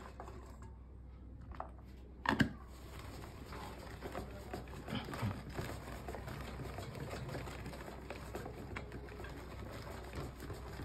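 A knock about two seconds in, then a hand-cranked chilli cutter turning steadily. Its blades chop a fresh load of whole hot peppers with a continuous run of small clicks and rattles.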